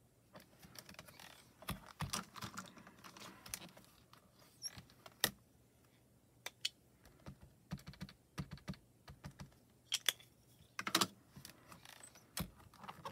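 Irregular clicks, taps and light rustling from hands handling clear stamps and a stamping platform, with a few sharper knocks scattered through.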